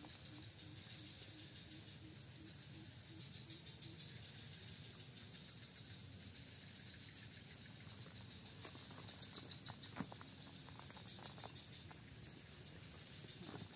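Steady, high-pitched insect chorus. A low call repeating about three times a second fades out in the first few seconds, and a few sharp clicks sound about ten seconds in.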